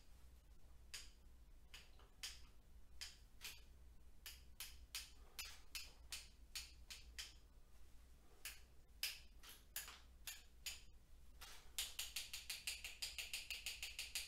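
Faint, sharp wooden taps of a paintbrush being whacked against another brush to splatter watered-down acrylic paint, coming at an uneven pace about once or twice a second, then quickening to a fast, even run of taps near the end.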